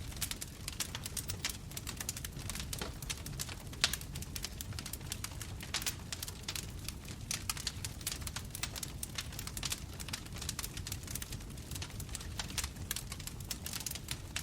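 Wood fire crackling: many small sharp pops and snaps of burning wood over a steady low rumble of flames.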